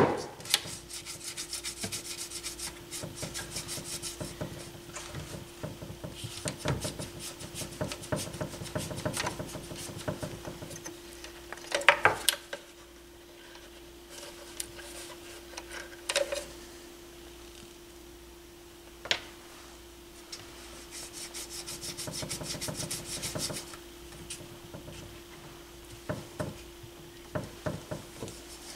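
Hands working the controls on the Fisher 550T receiver's chassis while it is cleaned with contact cleaner: scratchy rubbing and runs of rapid clicking, broken by a few sharper louder clicks. A faint steady hum sounds underneath.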